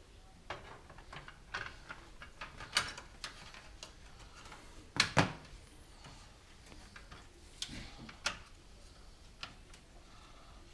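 Scattered clicks and knocks of a hard drive being fitted into a PC tower's drive mounts, with the loudest pair of knocks about five seconds in.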